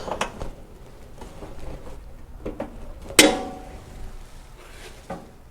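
Metal parts being handled: small scattered knocks and one sharp metallic clank about three seconds in that rings briefly.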